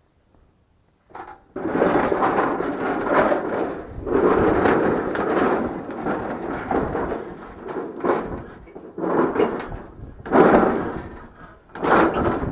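Loud scraping and rattling of something being dragged and shifted, in long rough stretches that begin after about a second and a half of near silence.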